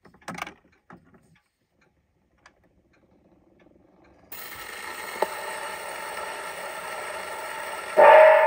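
A few mechanical clicks from the wind-up gramophone being handled, then the soundbox needle set down on a spinning 78 rpm Columbia shellac record: steady surface hiss and crackle from the lead-in groove. Near the end the record's music starts loudly.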